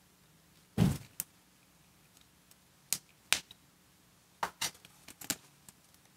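Handheld wire stripper snapping shut and pulling insulation off high-temperature wire: a series of sharp clicks. The loudest comes about a second in, a pair follows around three seconds, and a quick cluster comes between four and a half and five and a half seconds.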